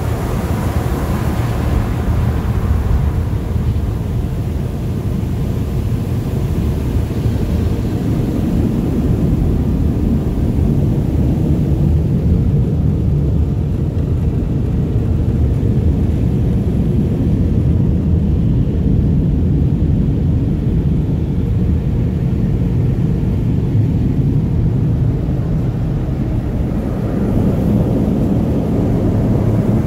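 Automatic car wash dryer blowers running, a steady, loud rush of air heard from inside a cargo van. Water spraying on the van fades out within the first few seconds.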